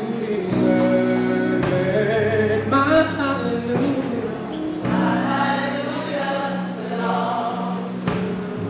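College gospel choir singing in a large hall, moving through long held chords.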